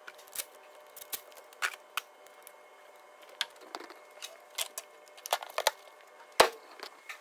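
Scattered sharp clicks and light knocks of hands working in the engine bay of an Audi 2.0 TDI, then the plastic engine cover being fitted and pressed down onto its mounts. The loudest knock comes about six seconds in.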